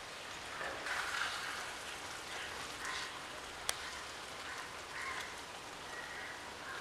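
A fish and crushed-coconut mixture sizzling faintly in a clay pot as it is gently stirred with a metal spoon. The stirring gives soft swells about once a second, and there is one sharp click a little past halfway.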